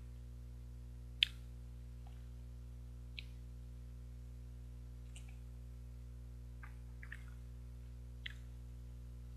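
Small wet mouth sounds of eating an ice cream bar, about six brief smacks and clicks as she licks and bites it, the sharpest about a second in. A steady low hum lies underneath.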